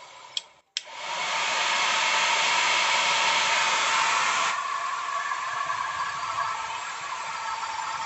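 Handheld hot-air dryer switched on with a couple of clicks, then blowing steadily to dry wet diluted ink on watercolour paper. About halfway through the rush drops to a lower, steady level.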